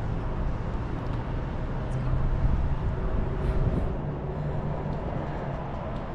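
Outdoor harbour ambience: a steady low rumble of wind on the microphone, with a faint low engine-like hum underneath.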